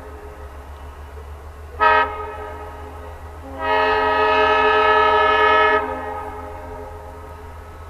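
Diesel locomotive's multi-chime air horn sounding a short toot about two seconds in, then a long blast of about two seconds: the closing short-and-long of a grade-crossing signal. A steady low rumble runs underneath.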